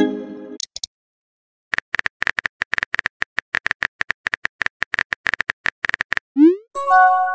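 Phone-keyboard typing sound effect from a texting-story app: a rapid run of short tap clicks, roughly eight or nine a second, as a message is typed out. A chime fades out at the start, and near the end a short rising pop is followed by a bright electronic message chime.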